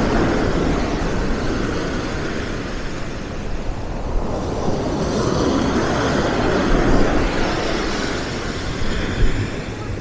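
Black Sea surf breaking and washing up a pebble beach, the rush of water swelling and easing as waves come in and draw back.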